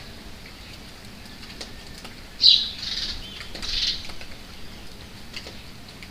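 Steady rain falling, with scattered drops ticking, and a bird calling in three short, high bursts about halfway through, the first the loudest.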